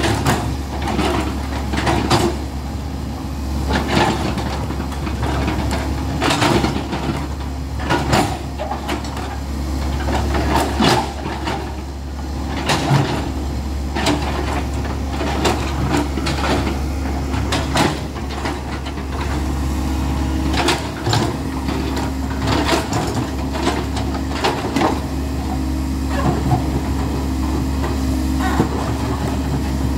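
Komatsu hydraulic excavator's diesel engine running steadily while the steel bucket digs rock, with irregular knocks and clatter every second or two as stone strikes and scrapes the bucket.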